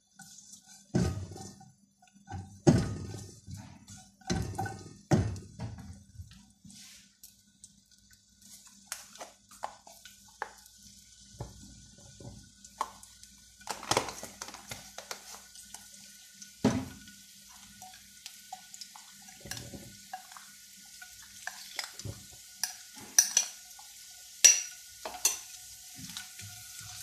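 Silicone spatula knocking and scraping in a nonstick wok as chopped garlic is stirred in oil, several distinct knocks in the first few seconds. About halfway through, a faint sizzle of the garlic in the heating oil sets in and continues under scattered spatula taps: the garlic is gently sautéing, not browning.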